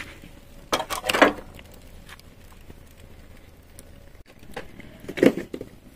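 Metal clinks and knocks as a tin can is lifted out of a small fire with pliers and set down on a metal tray: two knocks about a second in and another, louder one near the end.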